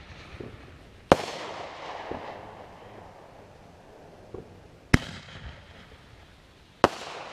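Aerial firework shells bursting: three sharp bangs, about a second in, about five seconds in and near the end, each followed by a rolling echo that dies away, with a few fainter pops in between.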